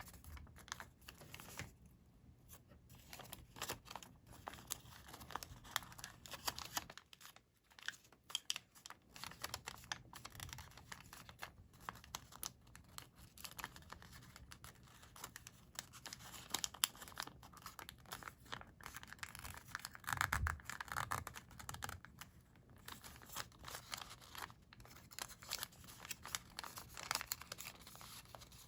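Sheets of colored origami paper being folded and creased by hand: close, continuous crinkling and rustling with small crackles, busiest about two-thirds of the way through.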